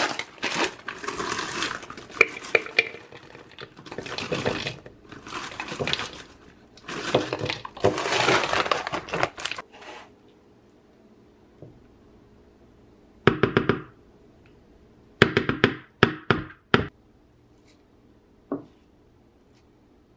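Frozen berries poured into a plastic blender cup, clattering and rattling in dense bursts alongside the crinkle of the bag for about ten seconds. Later come a few short bursts of clinking and knocking against the cup.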